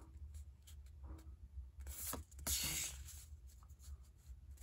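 Stiff cardstock picture cards sliding and rubbing against each other as they are handled and shuffled by hand. There are a few soft taps and one louder papery swish about halfway through.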